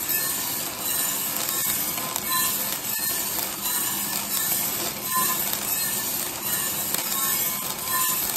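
Mill City 3 kg drum coffee roaster running, its drum turning at 20 rpm with a 600 g batch of green coffee beans tumbling inside: a steady mechanical whir with the light rattle of the beans and a few faint clicks.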